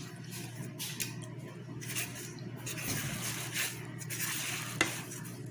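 Metal kitchen tongs working in a pot of cooked squash in syrup: the leaves and plastic bag covering the pot rustle and crinkle, with wet squishing, and there is a sharp metallic clink about five seconds in.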